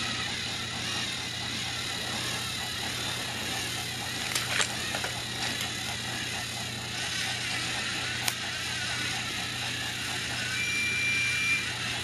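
Battery-powered TrackMaster Thomas toy engine's small electric motor whirring steadily as it runs along plastic track, with a couple of sharp clicks. A brief high tone sounds near the end.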